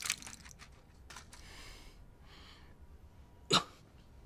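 Faint breaths, then one short vocal grunt falling in pitch about three and a half seconds in.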